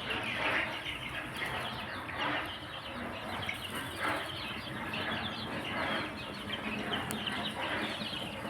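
A flock of four-week-old chicks peeping and cheeping, many short falling chirps overlapping continuously.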